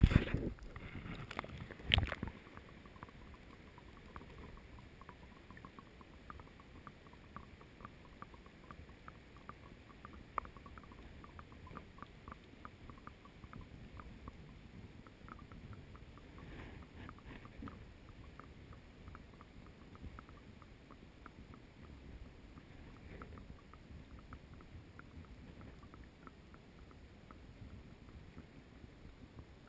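Waterproofed action camera pushed under the water beside a kayak: a splash and knock about two seconds in, then muffled underwater ambience with a low rumble and faint, irregular clicking.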